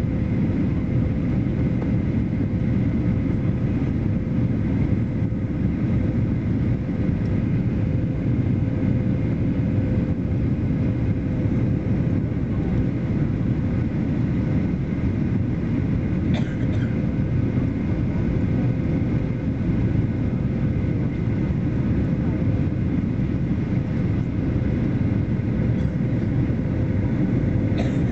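Airliner cabin noise on descent: a steady low rumble of engine and airflow heard from inside the cabin, with a faint steady hum and a faint click a little past halfway.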